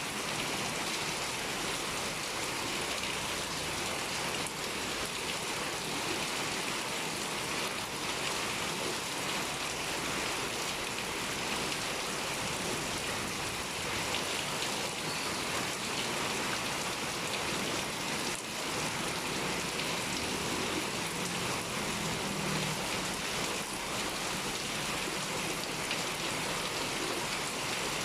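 Steady heavy rain pouring down, an even hiss of falling water and drops striking surfaces.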